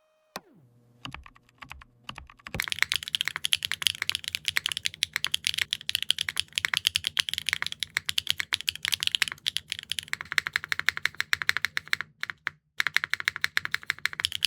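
Fast typing on a Neo65 Core Plus mechanical keyboard with HMX Electric Wave factory-lubed linear switches, a carbon fiber plate, no foams and GMK keycaps, giving a crisp, clacky sound. A few scattered sounds come first, the steady typing starts about two and a half seconds in, and there is a brief pause a little after twelve seconds.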